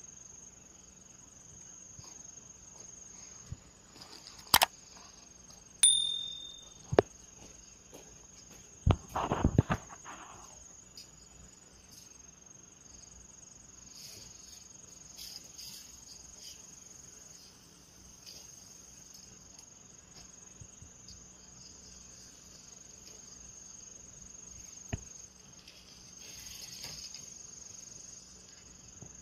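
Steady high-pitched chirring of insects such as crickets, with a few sharp clicks and a short burst of knocks in the first ten seconds.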